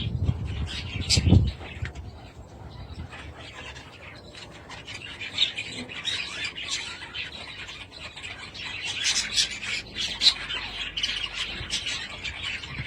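Budgerigars chirping and chattering in a busy run of short, high calls, with a louder low rumble in the first second and a half.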